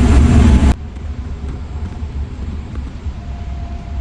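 Low rumble of a moving vehicle. It is loud and full at first, then drops suddenly to a quieter, steady rumble less than a second in.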